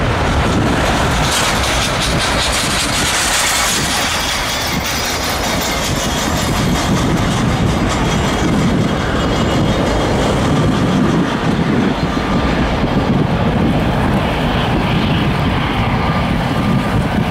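Boeing 737-800 jet engines (CFM56-7B) running loud and steady as the airliner rolls along the runway, with a high hiss strongest in the first few seconds and a low rumble underneath.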